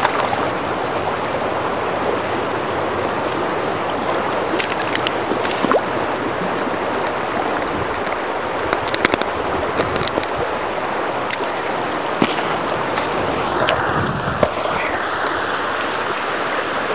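Shallow river riffle rushing steadily over rocks, with a few scattered light clicks and knocks.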